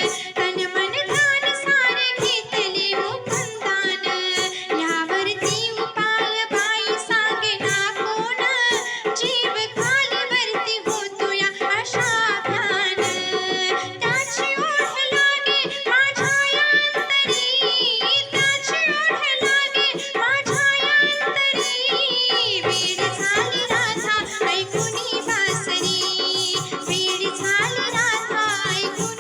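Marathi gavlan devotional song: a voice singing in gliding melodic lines over a steady drone, with a hand-drum rhythm throughout.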